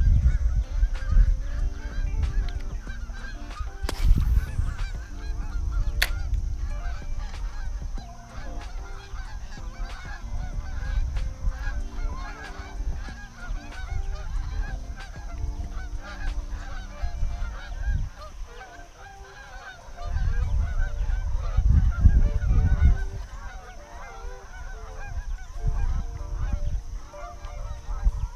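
A steady chorus of honking animal calls, many overlapping. Heavy low rumbling underneath swells about four seconds in and again near the two-thirds mark.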